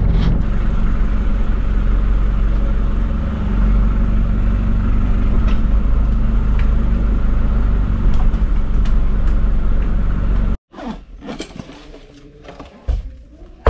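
Engine and road noise of a 1997 Toyota Coaster bus heard from inside the cab while driving, a loud, steady drone. About ten and a half seconds in it cuts off suddenly, giving way to a much quieter stretch with a few knocks.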